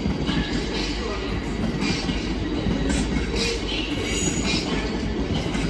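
Freight train of covered hopper wagons rolling slowly past: a steady rumble of wheels on rail, with brief high wheel squeals now and then.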